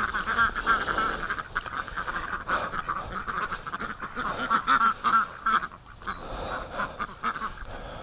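A flock of Pekin ducks quacking, many short calls overlapping one another, with a brief lull about six seconds in.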